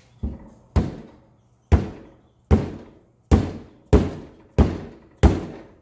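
Mallet striking a jig on a tractor PTO belt pulley hub, about eight steady blows spaced under a second apart, each a sharp knock that dies away quickly. The blows are meant to drive the hub down over a new seal, which the mallet fails to seat.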